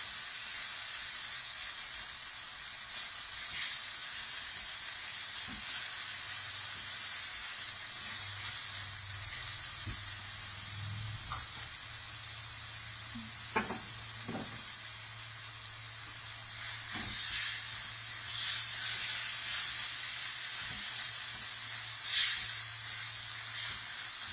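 Diced onions and chopped tomatoes sizzling in oil in a frying pan while being stirred, the sizzle flaring louder a few times near the end.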